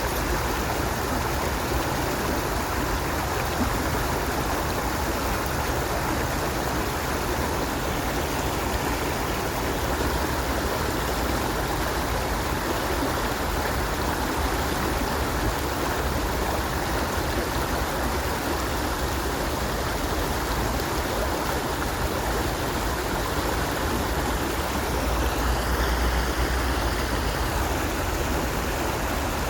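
Stream water flowing and splashing in a steady, dense rush. Near the end there is a brief swell with a faint wavering tone.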